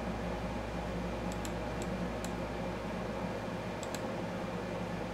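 Computer mouse clicking about six times, some in quick pairs, over a steady background hum.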